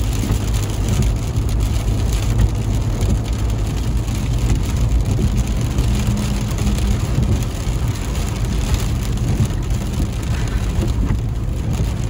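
Heavy rain beating on a car's roof and windscreen, heard from inside the cabin, over the steady low hum of the engine and tyres on the wet road as the car drives slowly.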